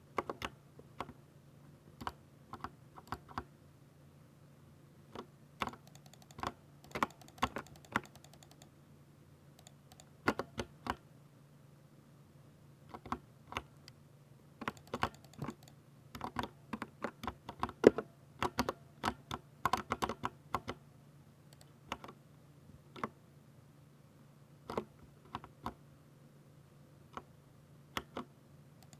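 Typing on a Ducky 60% mechanical keyboard with silver switches: keystrokes come in uneven runs separated by short pauses, one stroke near the middle landing noticeably harder than the rest.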